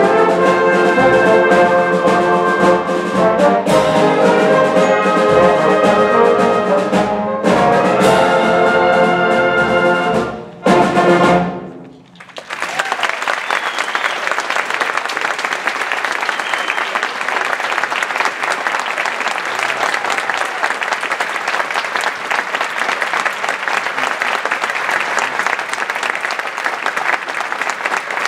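School concert band of brass, saxophones and woodwinds playing the closing bars of a piece, with a short break before a loud final chord that is cut off about eleven seconds in. The audience then applauds steadily.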